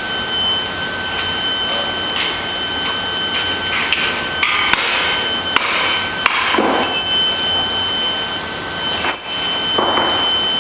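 Irregular hammer knocks and clinks of metal tools on metal, some ringing briefly, over a steady high-pitched whine.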